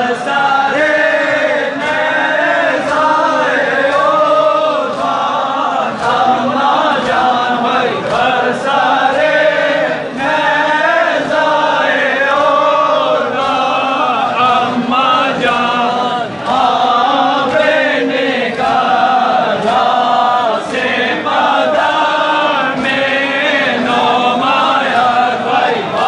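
A large crowd of men chanting a Shia mourning lament together, with sharp beats about once a second keeping time.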